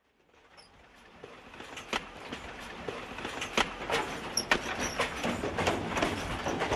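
Train running, fading in from silence and growing louder over the first few seconds, with irregular clanks and clicks over a steady noise.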